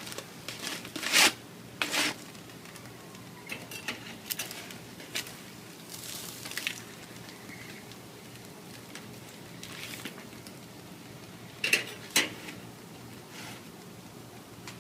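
Metal spatula clinking and scraping against a charcoal grill's grate while foil-wrapped fish packets are flipped and shifted, with foil crinkling. There are a few sharp clinks, the loudest about a second in, at two seconds and again near twelve seconds.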